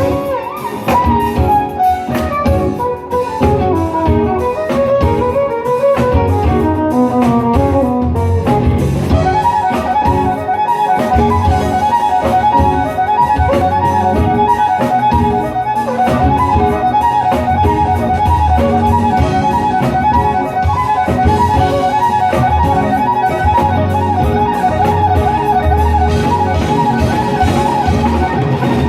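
Live jazz-fusion band with a violin lead, playing a fast melodic run for about the first nine seconds, then long held, wavering notes over a steady drum and bass groove.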